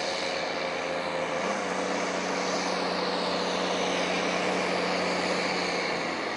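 Case IH tractor's diesel engine running steadily at constant speed, a continuous mechanical drone with a steady low hum.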